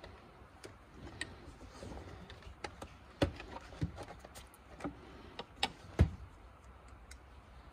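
Scattered light clicks and knocks of a plastic Hyundai Palisade side mirror assembly being handled and turned over, with its wiring shifting against the housing; the two loudest knocks come about three and six seconds in.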